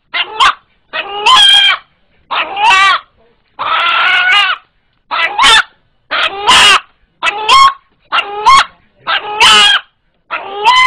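A rooster, held in the hand, gives about ten short, strained calls, one every second or so with brief silences between. This is its frightened call, which people liken to the word 'Allah'.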